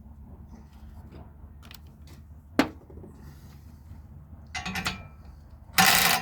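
Hand work on a brass valve being dismantled and cleaned: one sharp metallic click about two and a half seconds in, then two short rough clattering noises near the end, the last one the loudest, over a low steady hum.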